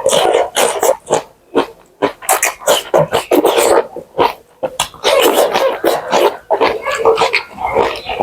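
Close-miked mouth sounds of eating buffalo bone marrow with rice: wet chewing and slurping in quick, irregular bursts.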